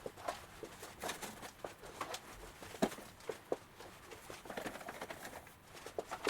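Light, irregular taps, clicks and soft rustling as potted plants and their wicks are handled and fitted into a living-wall planter.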